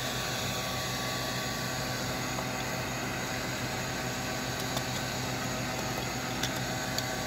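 Steady rushing noise with a low, even hum from a burning cinderblock melting furnace, with a few faint clicks in the second half.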